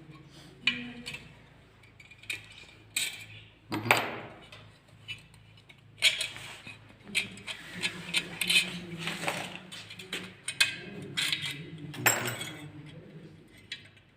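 Small metal parts clinking and knocking against a metal fixture: about a dozen sharp, ringing metallic clicks and taps at irregular intervals.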